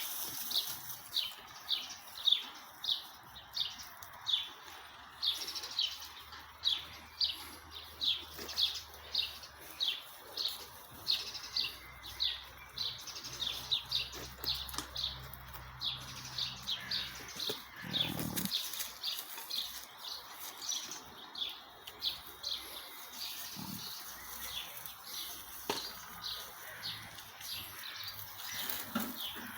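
A small bird repeating a short, high chirp about twice a second, on and on without a break.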